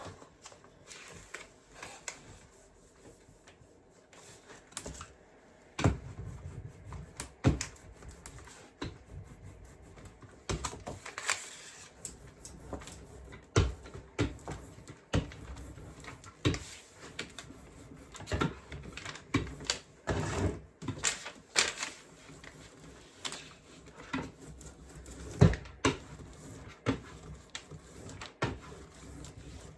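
Hands handling sticker paper and a board on a tabletop: irregular taps, knocks and sharp clicks with short stretches of paper rustling, as the backing is peeled and the sheet laid down.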